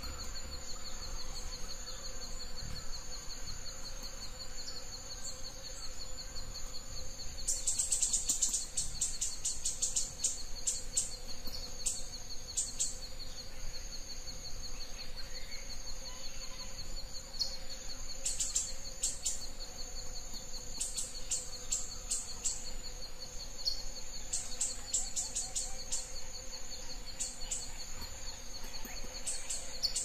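Forest insects trilling: a steady, high-pitched pulsing trill that runs without a break, joined after several seconds by repeated bursts of rapid high chirps.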